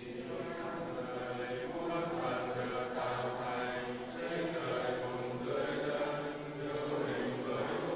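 A group of men's voices chanting a prayer text together in unison on a steady recitation tone, with a brief pause for breath about four seconds in.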